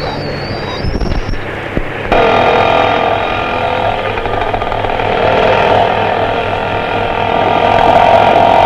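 A car engine pulling away for the first two seconds, then an abrupt change to a small motorcycle engine running steadily and growing louder as it approaches.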